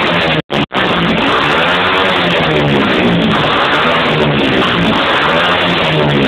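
Rock music with guitar, mixed with an AJP PR4 200 supermoto's single-cylinder engine revving up and down again and again. The sound drops out twice, very briefly, about half a second in.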